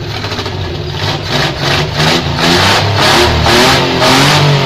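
Suzuki Multicab's F6A three-cylinder petrol engine being revved with the throttle: a string of quick blips that build into a longer, higher rev near the end. It is a check for misfire popping after a worn distributor cap was replaced.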